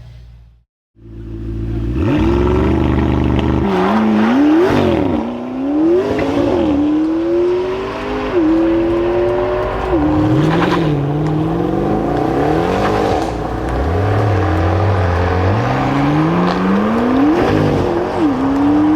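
Performance car engine accelerating hard through the gears, starting about a second in after a brief silence: its pitch climbs and drops back at each upshift, several times over.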